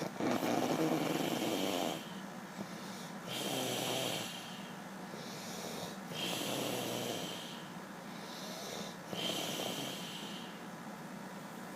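Slow, regular snoring, one breath about every three seconds.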